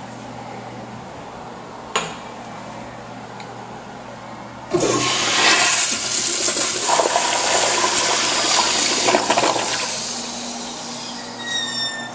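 Crane toilet flushing: a click about two seconds in, then a sudden loud rush of water through the bowl for about five seconds that fades away, with a brief rising whistle near the end.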